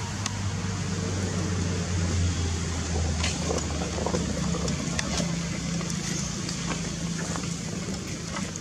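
Steady low hum of a motor vehicle engine running, its deepest part fading out about halfway, with a few sharp ticks over it.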